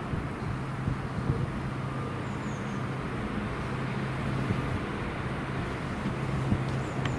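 Railway locomotive running with a steady low hum over a rumbling background.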